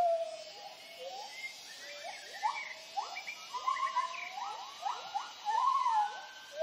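Gibbons giving their territorial hooting song: a chorus of rising, swooping hoots, several voices overlapping, with a faint steady high drone in the forest behind.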